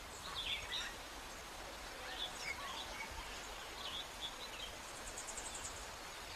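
Faint tropical-forest ambience: scattered short bird chirps over a soft steady hiss, with a brief high rapid trill about five seconds in.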